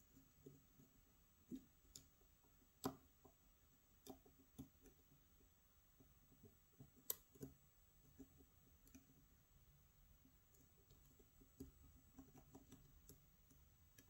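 Faint, irregular clicks and ticks of a hook pick working the pin stacks inside a challenge-lock cylinder under tension, with the sharpest clicks about 3 and 7 seconds in. The picker is probing for the binding pin.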